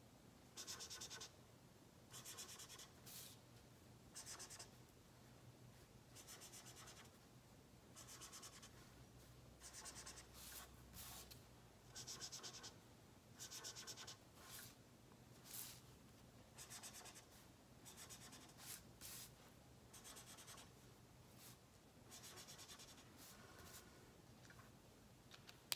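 Felt-tip marker (texta) scratching on paper in short, faint strokes about once a second, colouring in small leaf shapes.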